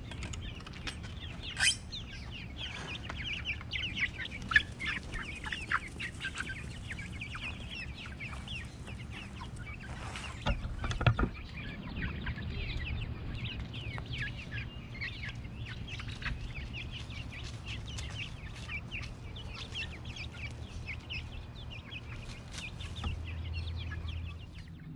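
A small flock of chickens clucking and making many short high-pitched calls as they forage. A couple of sharp knocks stand out, about two seconds in and about eleven seconds in.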